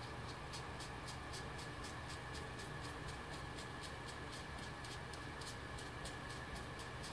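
Light, quick scrubbing of an ink blending tool over cardstock, about five short strokes a second, working soft ink shadowing into the paper.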